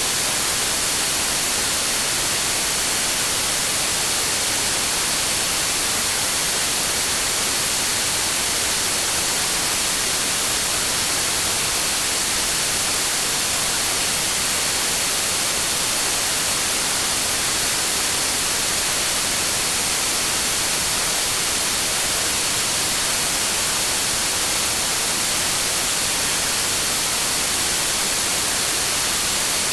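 Synthetic noise track labelled as green noise: a steady, unchanging hiss, weighted toward the high end, with a faint high-pitched tone held through it.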